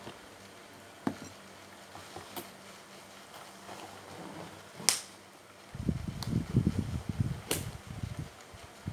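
A person eating ramen: a few sharp utensil clicks, the loudest about five seconds in, then close chewing for about three seconds near the end.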